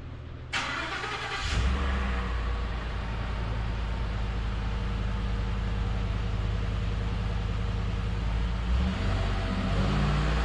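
2013 Ford F-150 on its stock exhaust, cold-started: a brief crank, then the engine catches about a second and a half in and runs at a steady fast idle, the revs rising near the end.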